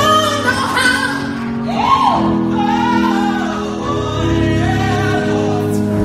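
Gospel-style singing: a voice bending and sliding between notes over long held chords.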